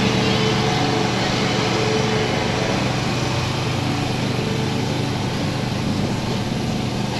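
Lawn mower engine running at a steady speed while it cuts grass.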